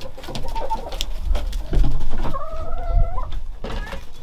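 Broody hen clucking, with one drawn-out wavering call about two and a half seconds in, over scattered clicks and a low rumble.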